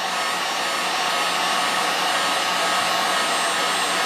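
Electric heat gun running, a steady rushing blow of hot air with a low hum, held about six inches from a Depron foam strip to soften it for bending.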